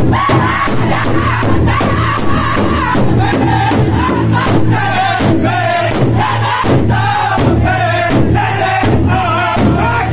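Powwow drum group: several men strike a large shared hide drum in unison with padded sticks, keeping a steady beat of about two to three strokes a second, while they sing together in high, strained voices.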